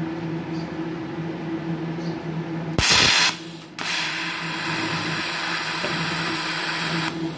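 TIG welding arc from a MultiPro TIG315AD welder with pulse switched off. About three seconds in the arc strikes with a sudden loud burst. After a short dip it runs as a steady, even hiss with no flicker or pulsing, then cuts off shortly before the end. A steady low hum runs underneath throughout.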